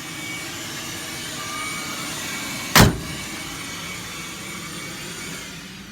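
A vacuum cleaner running steadily, with one loud, sharp thump about three seconds in.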